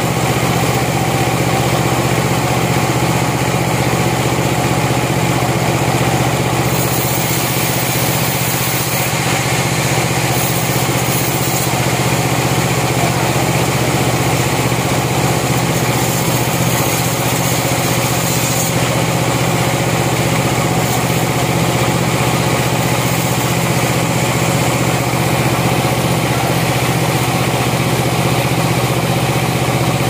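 A band sawmill running steadily, its band blade sawing lengthwise through a large log, over a constant drone from the mill's drive.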